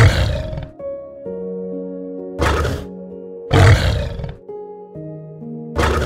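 Calm background music of held notes, overlaid by four short, loud, rough calls from a large animal. The longest call comes just before the four-second mark and lasts under a second.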